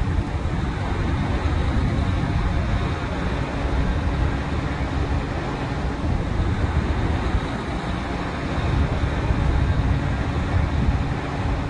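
Drilling rig machinery running: a steady low mechanical din with no distinct starts or stops.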